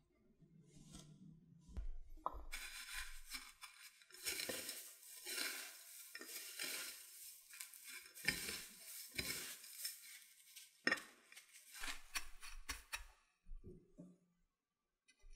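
Dry breadcrumbs rustling and crackling in an enamel tray as a potato-cube-coated corn dog is rolled through them and crumbs are pressed on by hand. The rustling starts a couple of seconds in and stops a second or two before the end.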